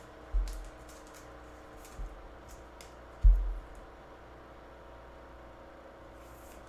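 Trading cards being handled over a tabletop: two brief low thuds, one just after the start and a louder one about three seconds in, with a softer knock between and faint clicks of the cards. A steady low hum runs underneath.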